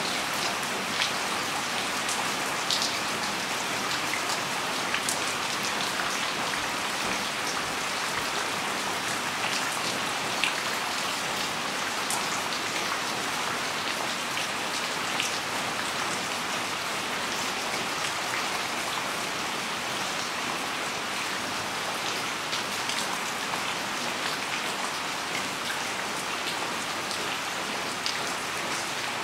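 Steady rain falling on garden leaves and plants: an even hiss with many scattered, sharper ticks of single drops landing close by.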